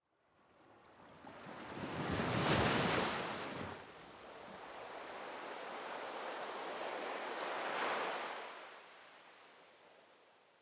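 Ocean waves washing in: a rushing surf noise that fades in, swells twice (about two and a half seconds in and again near eight seconds) and fades away.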